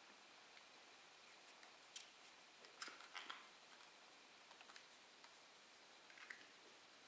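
Near silence with a few faint, short clicks and rustles from a pair of Zeiss Conquest HD 10x42 binoculars being turned over in the hands, heard about two, three, five and six seconds in.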